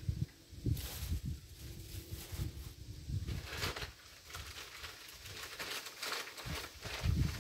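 Footsteps crunching on a sandy dirt path, with an uneven low rumble of wind on the microphone.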